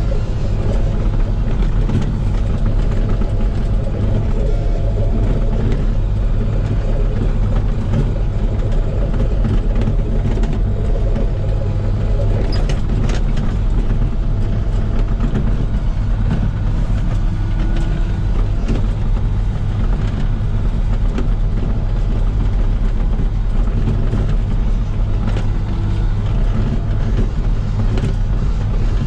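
Komatsu PC16 mini excavator's diesel engine running steadily under work, with a few short clanks about halfway through.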